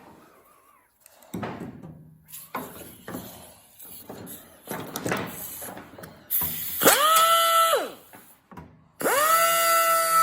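Scattered knocks and scraping of metal being handled, then a handheld electric power tool whines up to speed briefly about six seconds in, winds down, and starts again near the end, running steadily.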